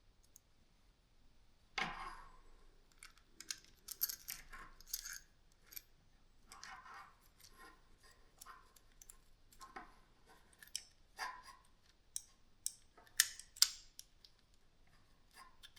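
Irregular small clicks and clinks of cordless-drill parts and tools being handled during disassembly, faint, with two sharper clicks near the end.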